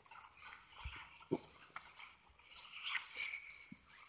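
Footsteps rustling and crunching through dry fallen leaves, with a few sharp clicks.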